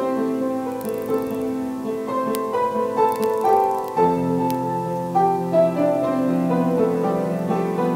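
Background piano music, a slow melody over held chords.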